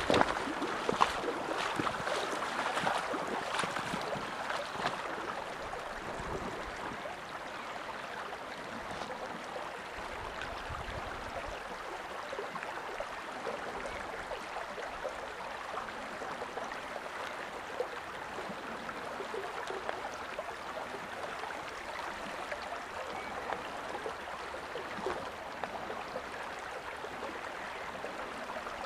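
Small stream flowing steadily, an even rush of water. A few short knocks and rustles sound in the first few seconds.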